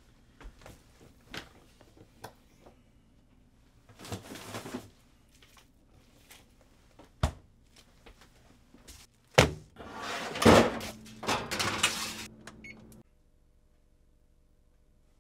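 Kitchen handling sounds: scattered small clicks and knocks, a short rustle, and a single sharp knock. Then comes a loud thunk, followed by a few seconds of rustling and clattering that stops suddenly, leaving only faint room hum.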